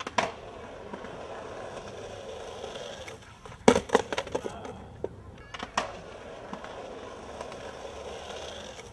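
Skateboard wheels rolling steadily, with a sharp clack just after the start. About four seconds in comes a cluster of loud clacks and slaps from the board, and another couple of clacks near six seconds.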